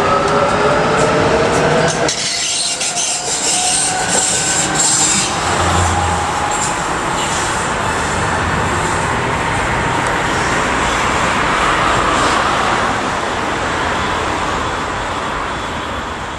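Bogestra metre-gauge electric tram running on its track. An electric motor whine rises in pitch over the first two seconds as it picks up speed, then gives way to a steady rolling noise of steel wheels on rail.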